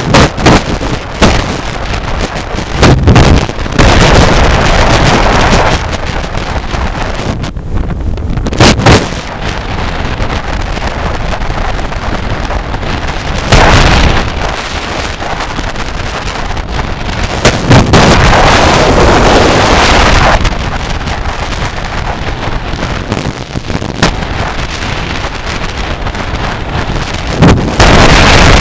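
Heavy wind buffeting on the microphone of a vehicle moving at highway speed, with road and engine noise underneath. Loud gusts swell and fade every few seconds.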